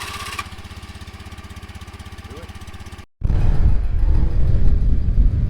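Small motorbike engine idling with a fast, even putter; about three seconds in it cuts off abruptly and gives way to loud wind buffeting the microphone, as on a moving motorbike.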